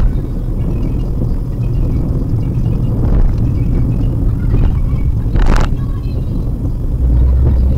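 Steady low road and engine rumble of a moving car, heard from inside. About five and a half seconds in there is a short, sharp hiss, and near the end the low rumble grows louder.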